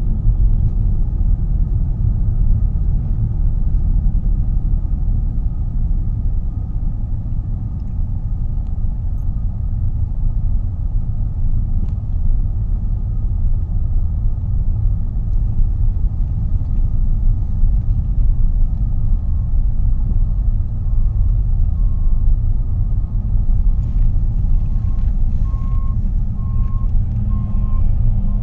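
Heavy road-construction machinery at an asphalt paving job running with a steady low rumble. From about two-thirds of the way in, a vehicle's reversing alarm beeps at an even pace, roughly one beep a second.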